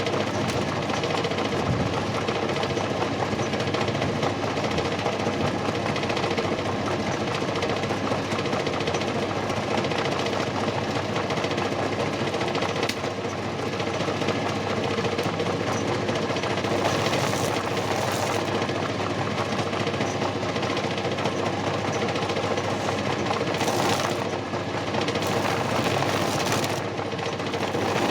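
Washing-machine motor driving a homemade PVC lathe, running steadily with a constant hum and rattle; a few brief scraping hisses come near the end.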